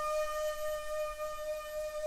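Solo shakuhachi (bamboo end-blown flute) holding one long note with breathy air noise over it.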